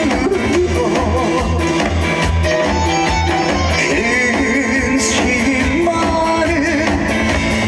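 Instrumental interlude of a trot song: loud backing music with a steady beat.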